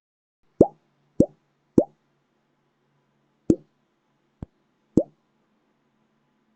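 Subtle pop-up sound effects: five short pops, each a quick blip sliding up in pitch. Three come about half a second apart, then two more after a pause, with a faint click between the last two.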